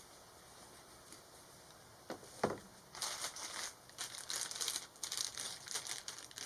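Two knocks about two seconds in, then packaging crinkling in quick bursts as it is handled.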